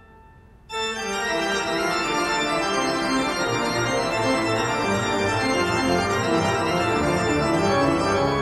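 Background organ music. A held chord fades away, then a new passage of sustained organ notes starts abruptly under a second in and carries on at a steady level.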